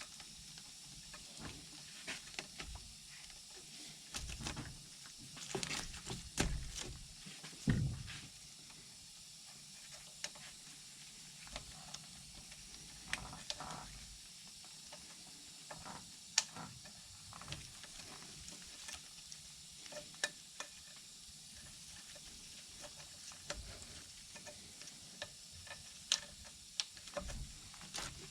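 Faint, scattered clicks, taps and rustling of hand work as poly nets are fitted onto an ATV's nerf bars, with a few louder knocks about four to eight seconds in.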